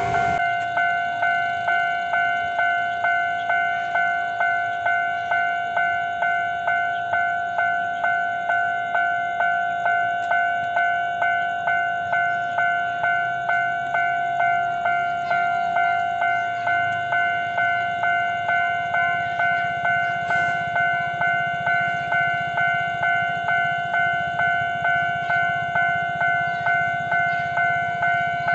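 Railway level-crossing warning bell ringing in a steady, even ding-ding rhythm, each stroke fading before the next, still sounding after the train has passed.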